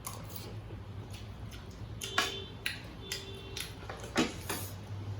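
Cutlery and plates clinking at a meal: a scatter of short sharp clinks, the loudest about two seconds and four seconds in.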